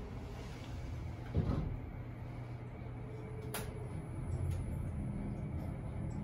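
Mitsubishi AXIEZ (4th generation) elevator: the car's sliding doors close with a thud about a second and a half in, then the car sets off upward with a low steady hum, with a single sharp click partway through.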